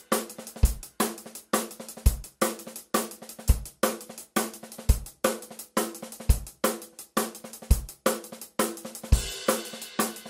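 Background music with a steady drum beat: a deep low hit about every second and a half, with quicker sharp hits between.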